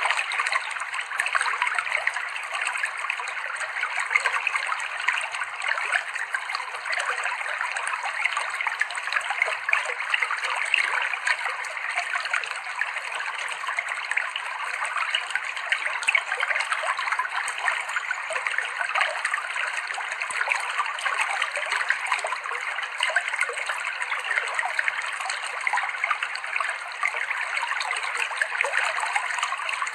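Clear shallow river water flowing and splashing over rocks: a steady babbling with many small splashes.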